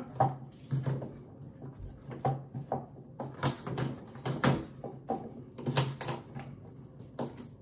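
A kitchen knife cutting fresh ginger root on a cutting board: irregular knocks of the blade chopping through the root onto the board, about a dozen spread over several seconds, over a faint steady hum.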